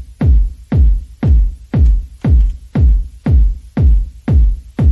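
Electronic background music with a deep, steady kick-drum beat, about two beats a second.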